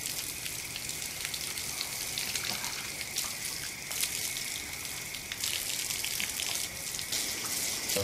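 Water running from a tap and splashing over hands washed under it for ablution: a steady hiss with small scattered splashes.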